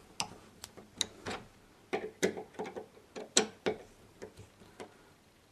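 Irregular sharp metal clicks, about two a second, as the bolt-through fixings of a lever door handle set are tightened with a hand tool. The clicks stop near the end.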